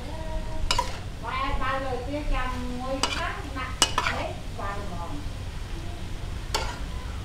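Squid and garlic chives stir-frying in a wok, sizzling, as a metal spatula scrapes and tosses them, with a few sharp knocks of the spatula against the pan.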